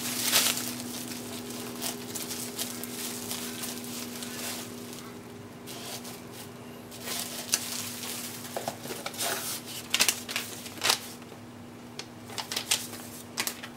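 Bubble wrap crinkling and rustling as it is pulled out of a cardboard box, with sharper crackles and clicks about seven to eleven seconds in.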